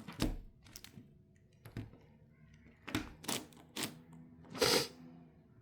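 Layers of a 10x10 puzzle cube being turned by hand: about seven separate clicks and clacks at an irregular pace, the loudest near the end.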